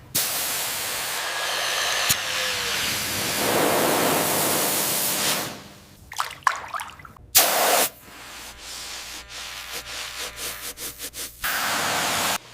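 Cleaning noises on metal: a long steady hiss like spraying, then a run of short scratchy strokes with one brief loud burst, and another steady hiss near the end.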